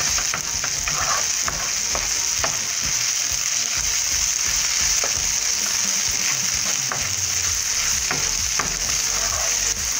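Diced smoked bacon frying in oil with an onion, garlic and chili paste in a nonstick skillet, sizzling steadily while a wooden spatula stirs and scrapes it through the pan, with scattered small clicks.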